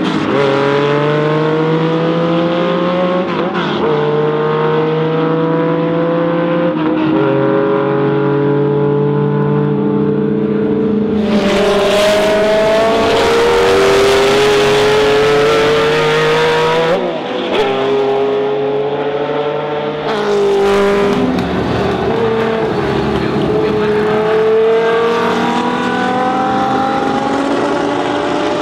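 A car engine revving hard and accelerating through the gears, its pitch climbing and then dropping back at each shift, several times over, with stretches of loud hiss partway through.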